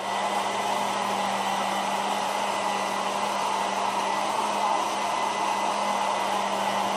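Countertop blender motor running steadily at full speed, beating thick chocolate cake batter of eggs, butter, flour and milk, with an even whirring hum.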